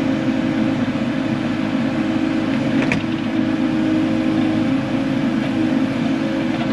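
Excavator diesel engine running steadily while digging a trench, with one short click about three seconds in.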